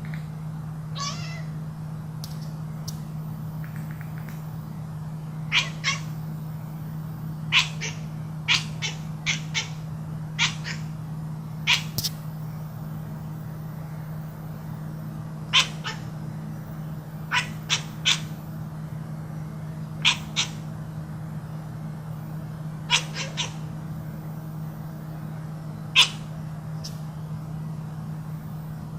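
Domestic cat giving a string of short, sharp calls, some single and some in quick runs of two or three, over a steady low hum.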